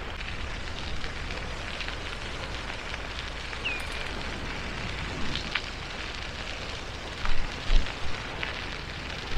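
Wind rushing over the camera microphone and bicycle tyres crunching on a gravel path while riding: a steady noisy hiss, with a few low buffets in the second half.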